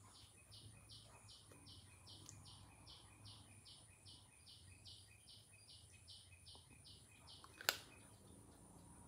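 A faint, steady run of about twenty short, high chirps, about three a second, that stops about seven seconds in. A single sharp click comes just after.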